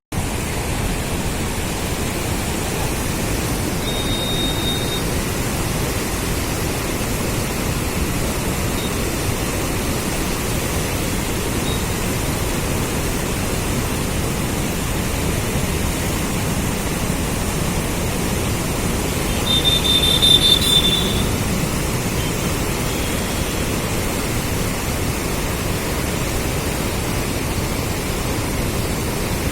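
Steady loud rush of fast-flowing Krishna floodwater, with a brief high tone about four seconds in and a louder one about two-thirds of the way through.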